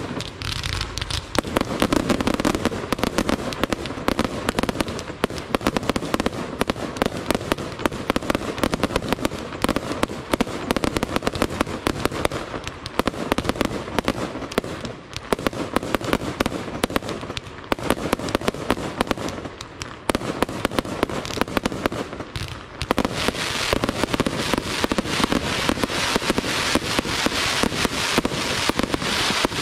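Fireworks display: a continuous barrage of aerial shells and ground-launched fireworks bursting in rapid, overlapping bangs. About 23 seconds in it turns into a denser, hissing crackle as crackling-star shells burst.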